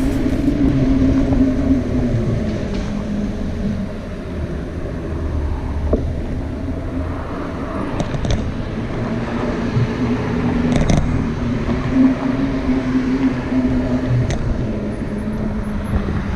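Road traffic: a motor vehicle running close by, with a steady engine hum over a low road rumble and a few short clicks.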